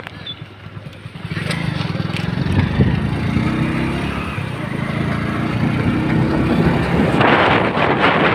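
A motorcycle engine running, its pitch rising and falling in the middle. A loud rushing noise comes in near the end.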